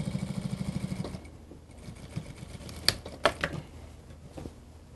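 Industrial single-needle sewing machine stitching through mink fur and leather in a short burst, a fast even mechanical rhythm that stops about a second in. A few sharp clicks and knocks follow, the two loudest about three seconds in.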